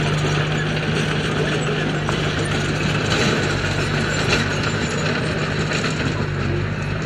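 Heavy construction machine's diesel engine running steadily, with a mechanical rattle over it.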